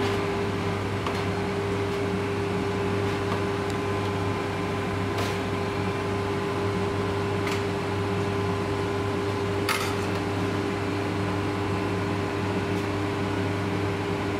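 Steady mechanical hum of commercial kitchen equipment, with a few steady tones in it. A few light clicks of a spoon against china bowls and a steel tray as curry is dished up.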